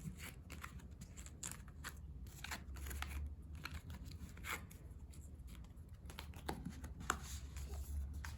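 K-pop album parts and photocards being handled and set aside: irregular light clicks, taps and paper-and-plastic rustles, over a steady low hum.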